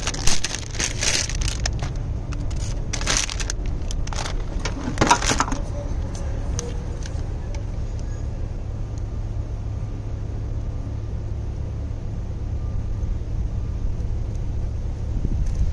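Clear plastic packaging bag crinkling and rustling for about the first five seconds as a small remote control is pulled out of it, over a steady low rumble that runs throughout.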